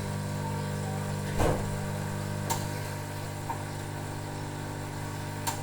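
Gemilai espresso machine's pump running with a steady buzzing hum. A few sharp clicks fall over it, the loudest about a second and a half in.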